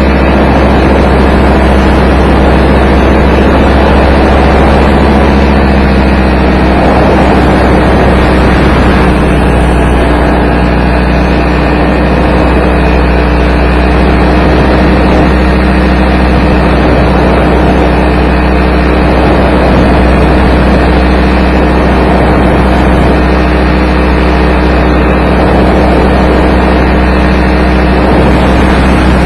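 Paramotor engine running steadily at a constant speed.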